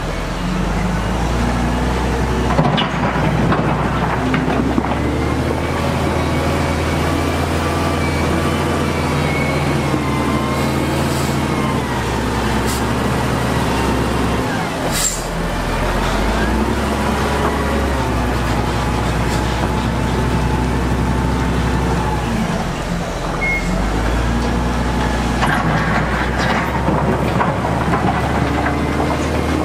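Heavy diesel engines of dump trucks and a wheel loader running, a steady low drone whose pitch steps up and down every few seconds. A single sharp click about halfway through.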